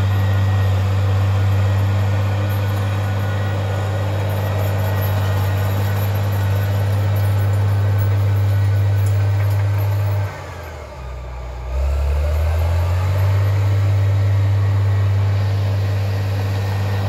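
Crawler bulldozer's diesel engine running steadily under throttle while it works. Just past the middle its pitch sinks and its level drops for about a second and a half before it climbs back up to full running.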